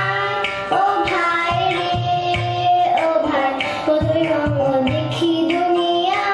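A voice singing a song melody with long held notes, over a steady hand-drum beat.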